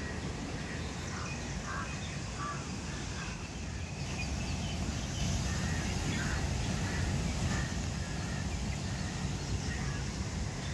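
Outdoor riverside ambience: a steady rush of noise that grows louder about four seconds in, with a few short bird calls in the first few seconds.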